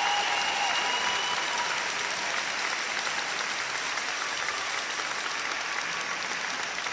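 Audience applauding a figure skater at a skating competition, the clapping slowly dying down.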